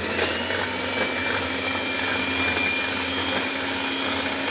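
Electric hand mixer running at a steady speed with a constant motor whine, its beaters whipping chilled cream in a glass bowl.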